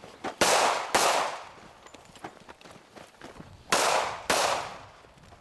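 Four rifle shots in two pairs. The shots in each pair are about half a second apart, and the pairs are about three seconds apart. Each report trails off with a short echo.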